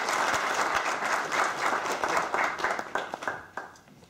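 Audience applauding, thinning to a few last claps and dying away about three and a half seconds in.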